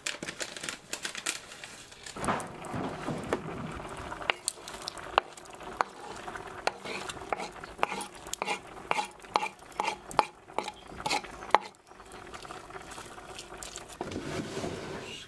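A wooden spatula stirring and tapping in a cast-iron frying pan set over a wood fire, a run of sharp clicks and scrapes at about two a second.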